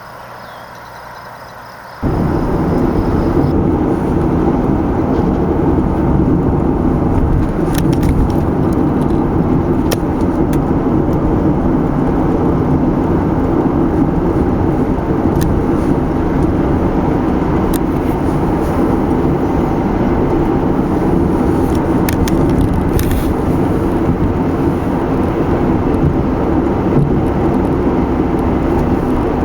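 Steady road and engine noise of a moving car, heard from inside the cabin, starting suddenly about two seconds in after a quieter stretch, with a few faint clicks.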